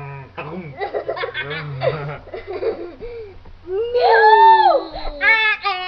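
Young people laughing and yelling close to a webcam microphone. About four seconds in, one loud drawn-out cry rises and then falls in pitch.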